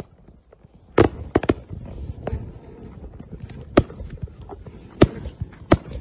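Firecrackers going off on the ground: about seven sharp bangs at irregular intervals, starting about a second in, with fainter crackling between them.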